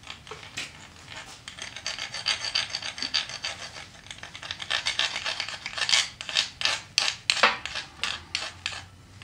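Wood file rasping back and forth on a magnesium fire-starter stick, scraping off magnesium shavings for tinder. The strokes are faint at first, then come louder and more regular from about halfway in, roughly three a second.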